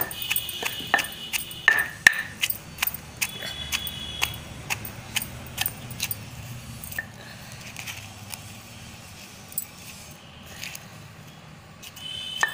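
Stone mortar and pestle pounding raw onions with chili powder and salt, coarsely crushing them. Repeated irregular knocks and clinks of the pestle against the stone, about two to three strikes a second.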